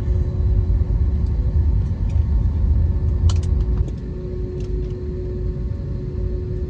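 Airbus A320 cabin noise while taxiing: a steady low rumble with a constant hum over it. A few light clicks or rattles come about three seconds in.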